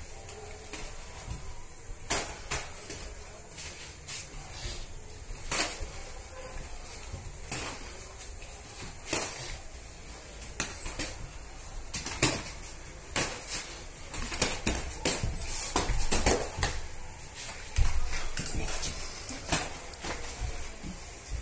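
Boxing gloves landing punches in irregular slaps and thuds, coming thicker and louder for the last several seconds.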